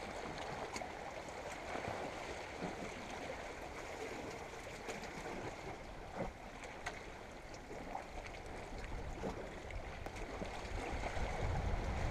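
Seawater lapping and washing against the shoreline rocks, a steady wash with a few faint ticks scattered through it.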